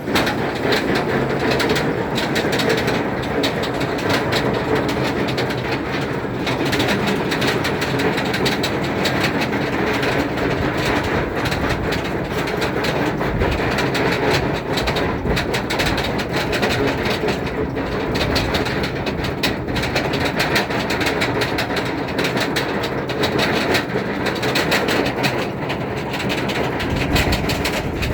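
SheiKra dive coaster's train running on its steel track, a steady loud rattle and clatter with rapid clicking throughout.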